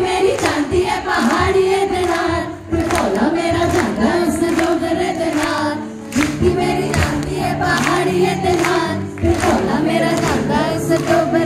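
Amplified live pop song: a woman singing into a microphone over a backing track with a steady beat.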